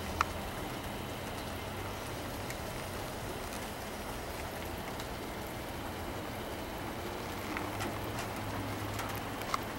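Steady rain falling, an even hiss, with a sharp tap just after the start and another near the end.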